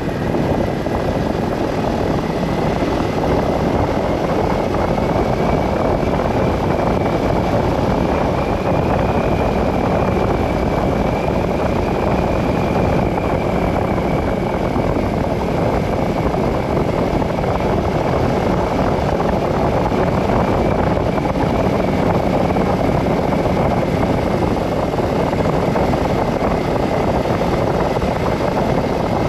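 Vehicle driving at steady speed: continuous road and engine noise with a faint whine that drifts slightly up and back down in pitch.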